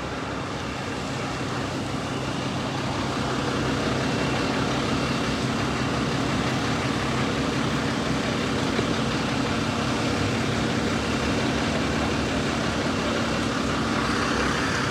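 A motor running steadily under a haze of street noise; its hum grows louder over the first few seconds and then holds.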